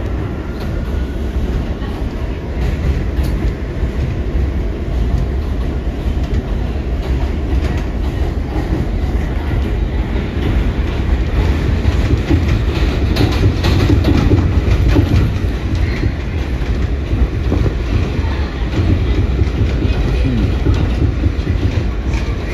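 New York City Subway R179 cars of an A train rolling past, a steady heavy rumble with wheels clacking over rail joints. It grows loudest a little past the middle.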